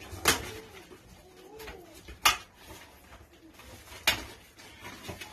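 A cardboard box being opened by hand: three sharp rips or crumples of cardboard and packing, about two seconds apart. Soft rising-and-falling animal calls, like cooing or mewing, sound underneath in the first two seconds.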